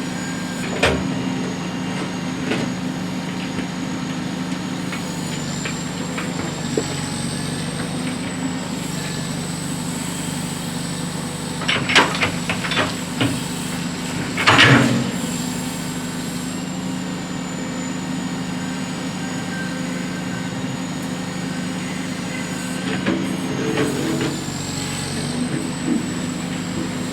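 Case 780 backhoe's diesel engine running at a steady speed while it works, with scattered metallic clanks and knocks. The loudest clank comes about halfway through, and a cluster of smaller ones comes near the end.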